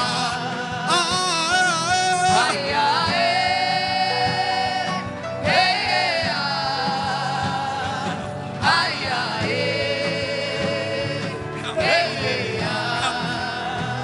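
Gospel worship song: voices singing long held notes with a wavering pitch over an instrumental backing with a steady beat.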